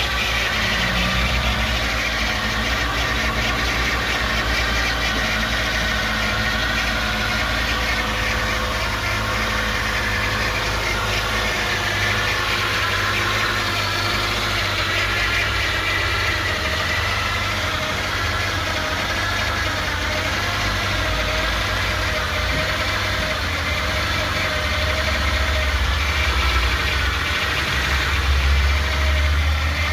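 2007 Nissan Altima's engine running steadily at idle, with a low hum that swells slightly near the end and a wavering higher whine above it: the noise the owner cannot identify.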